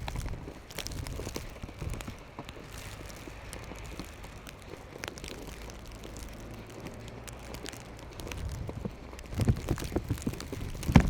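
Footsteps crunching in fresh snow, irregular crackling steps over a low steady rumble of wind or distant traffic, with louder thumps in the last couple of seconds.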